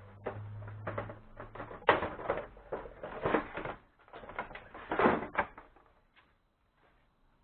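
Irregular knocks, clicks and rattles of scooter parts being handled and removed, the loudest about two and five seconds in, dying away about six seconds in.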